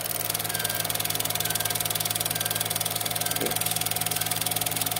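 Elmo SC-18 Super 8 sound film projector running with film threaded: a steady motor hum under a fast, even clatter from the film transport.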